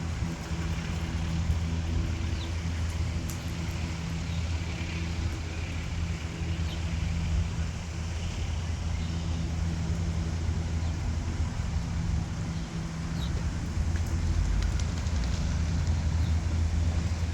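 A motor vehicle's engine running with a steady low hum, with a few faint short high sounds now and then above it.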